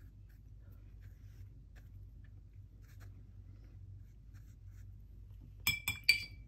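Faint scratching and dabbing of a watercolour brush on cold-press paper over a low steady hum, then a few sharp clinks with a brief ringing tone near the end.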